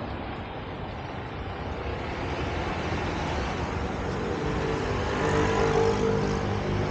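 A car engine running close by, growing louder through the first few seconds, with its steady hum loudest about five to six seconds in.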